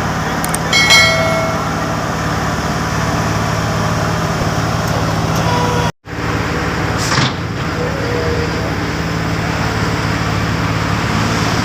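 Diesel engine of heavy road-construction machinery running steadily, with a short high-pitched tone about a second in. The sound cuts out for an instant about six seconds in.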